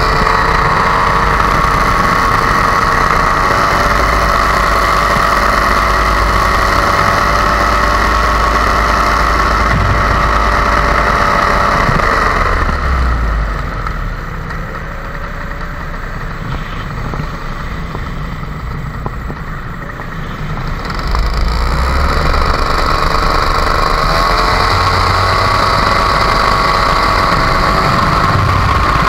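Blackhawk paramotor's two-stroke engine and propeller running steadily in flight. About twelve seconds in it is throttled back, and its pitch and level drop. About nine seconds later it is opened up again to the same steady running.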